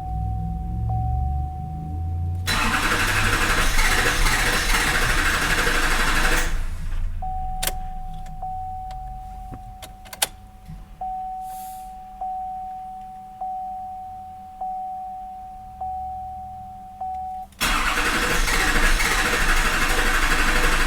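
6.6 L Duramax LBZ V8 turbodiesel cranking on the starter without firing, twice for about four seconds each: a cranks-but-no-start fault. Between the two attempts the truck's dash warning chime dings steadily, a little over a second apart.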